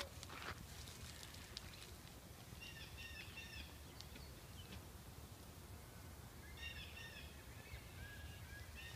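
Raccoon up a tree chittering: two bouts of short, high chirps in quick series, about three seconds in and again near the end, after a few faint clicks of handling noise at the start.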